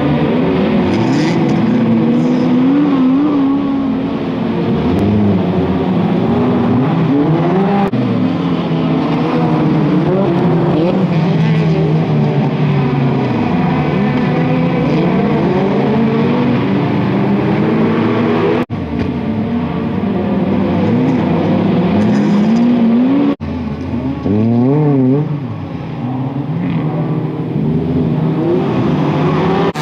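Engines of several autocross touring cars racing on dirt, revving hard, their overlapping pitches rising and falling with throttle and gear changes. The sound breaks off twice for an instant near the end.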